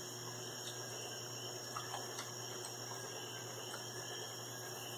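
Quiet, steady room tone: a constant low hum and hiss, with a few faint small clicks.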